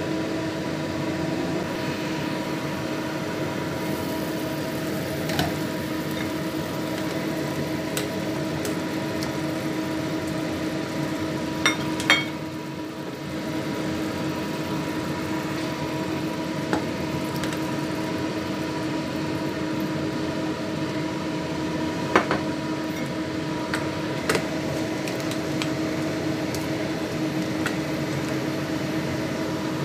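Steady hum of a kitchen appliance's fan, holding a few level tones. About twelve seconds in, a stainless steel pot lid clinks twice as it is lifted, with a few lighter metal clicks later.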